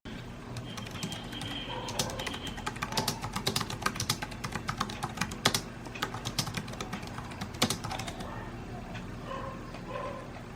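Typing on a computer keyboard: a quick, uneven run of key clicks, with a few louder keystrokes standing out.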